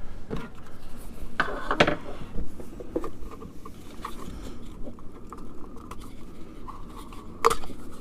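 Light clicks and taps of small plastic parts being handled, with a sharper knock near the end.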